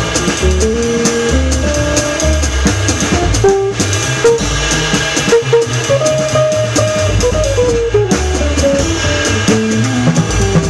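Small jazz group playing rhythm changes: drum kit with the stick on the ride cymbal, a walking upright bass line, and a single-note melodic line stepping above them.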